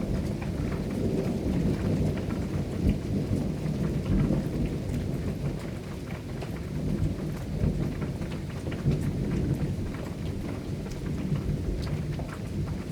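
Low rolling thunder rumbling continuously, with scattered raindrops ticking.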